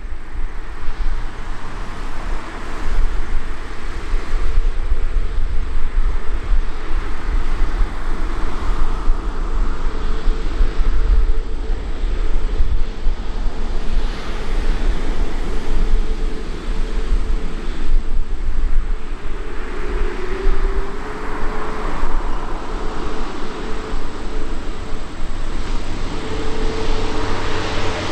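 Jet engines of an Airbus A350-1000, its Rolls-Royce Trent XWB-97 turbofans, running with a steady low rumble and a held whine.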